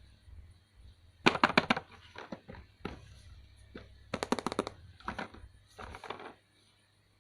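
Bursts of rapid clicking and rattling from plastic toy parts and packaging being handled, in several short flurries with pauses between them.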